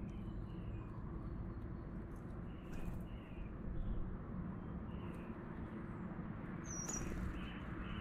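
Small backyard songbirds chirping: short calls every second or so, with one higher, thin note about seven seconds in, over a steady low background rumble.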